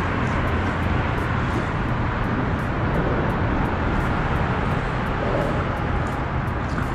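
Steady road traffic noise from highway bridges overhead, an even, continuous rumble and hiss.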